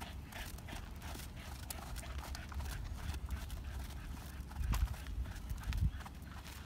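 Hoofbeats of a trotting Thoroughbred horse on sand arena footing, a run of light, regular footfalls. Two louder, duller low thuds come about two thirds of the way through.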